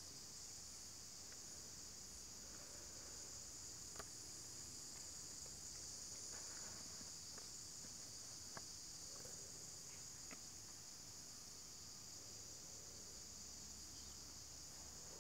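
Faint insect chorus: a steady, high, even buzz, with a few faint ticks.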